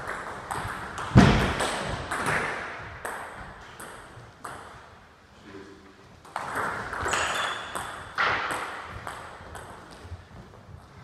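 Table tennis ball clicking sharply off paddles and the table, a hit about every half second, with a pause in the middle. A heavy thump about a second in is the loudest sound.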